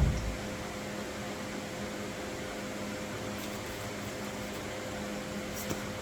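Steady mechanical hum, with a thump right at the start and a faint click near the end.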